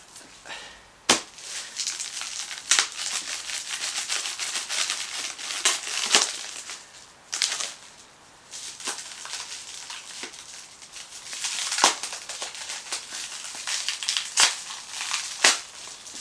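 Clear plastic shrink wrap being torn and peeled off a stack of skateboard decks: continuous crinkling and crackling, with a few sharp snaps as the film pulls free.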